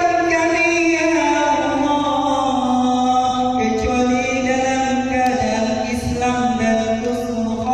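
A man chanting an Islamic supplication (du'a) unaccompanied in a melodic, melismatic style, holding long notes that glide slowly up and down.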